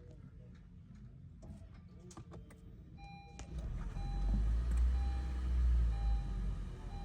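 Car engine rumbling low, swelling about halfway in and easing near the end, while a dashboard warning chime beeps steadily about once a second. A few light clicks come before it.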